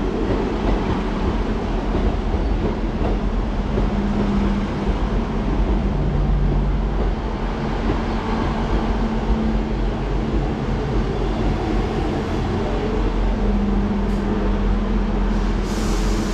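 South Western Railway diesel multiple unit running in along the platform. Its diesel engines make a steady rumble with the noise of the carriages rolling past, and a low engine hum swells and fades a few times.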